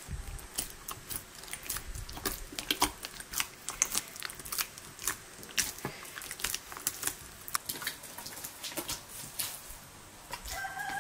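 Soft, wet dough being squeezed and kneaded by hand in an enamel bowl: a string of irregular squishing smacks. Near the end a rooster starts to crow.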